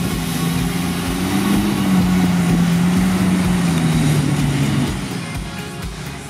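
Mitsubishi Pajero's engine labouring at low speed as the 4x4 climbs through deep mud ruts. Its note rises a little about a second and a half in, then falls away near the end as the driver eases off.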